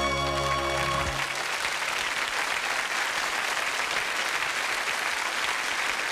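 Sitcom theme music ending on a held chord about a second in, followed by steady studio-audience applause.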